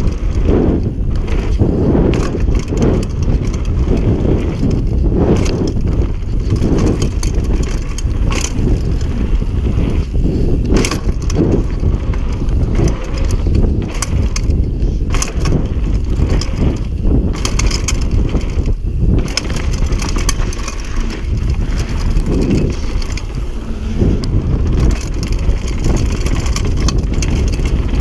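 Mountain bike riding fast down a dirt trail: wind buffeting the camera microphone over a steady crunch of tyres on dirt and gravel, with frequent sharp knocks and rattles from the bike over bumps.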